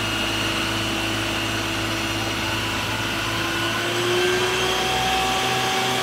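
Isuzu water tanker truck with its pump running, its roof water cannon shooting a high-pressure jet of water: a steady rushing hiss with a steady whine that rises a little about four seconds in.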